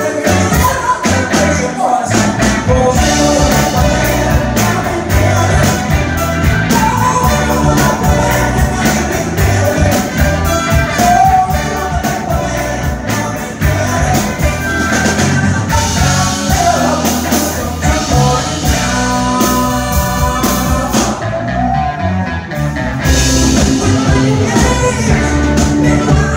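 Live soul band performance: a male lead singer belting over his electric guitar, with bass and drums driving a steady beat.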